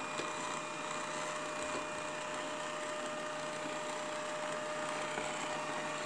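Beko RS 2121 robot vacuum running on a rug: a steady whir from its suction fan and brushes, with a constant high whine over it.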